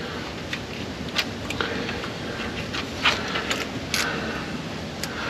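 Light, scattered clicks and taps of metal parts being handled at an open rear differential, about half a dozen in all, over a steady low background noise.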